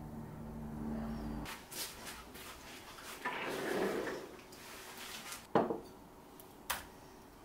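Kitchen handling sounds: a steady low hum cuts off about a second and a half in, then dishes and utensils clatter, with two sharp knocks near the end.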